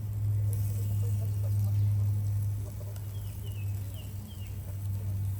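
A steady low hum, with a few short, faint bird chirps a little past the middle.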